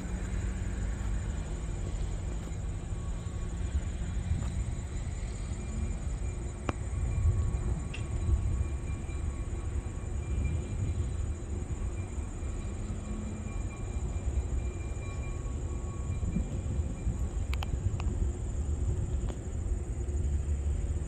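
EMD GP9R diesel locomotive slowly shoving a boxcar, a steady low engine rumble with a few sharp clanks from the wheels and couplers.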